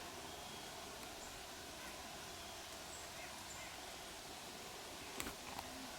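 Quiet woodland ambience: a steady faint hiss with a few faint, short distant bird calls, and a couple of light clicks near the end.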